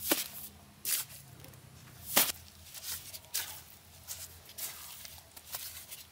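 Steel hand trowel scooping and scraping wet cement mortar, then slapping it down onto the soil: a string of short, sharp scrapes and slaps, the loudest a little over two seconds in.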